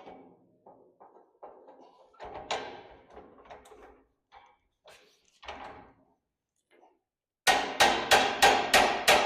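Light clinks and knocks of metal parts being handled, then near the end a fast run of loud hammer blows on metal, about four a second, ringing.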